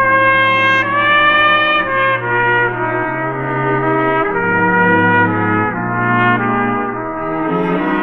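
Instrumental brass music played from a vinyl record: a trumpet holds long melody notes, with one slight upward move about a second in. Lower harmony parts step to new notes every second or so beneath it.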